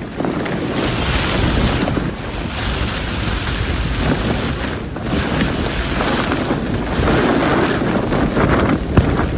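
Gale-force wind gusting against a Cloud Peak 2 tent, the fabric flapping and rattling; the roar surges and eases over a few seconds, with a sharp flap near the end.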